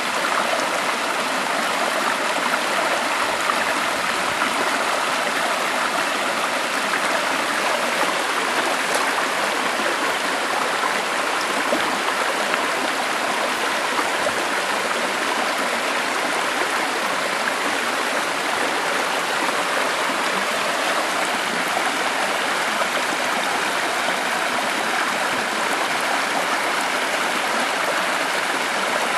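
Stream flowing: a steady, unbroken rush of running water.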